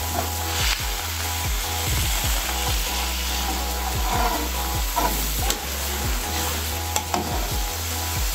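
Black bean sauce with garlic and onion sizzling in a wok, a metal spatula stirring it with scattered light clicks and scrapes against the pan. A steady low hum runs underneath.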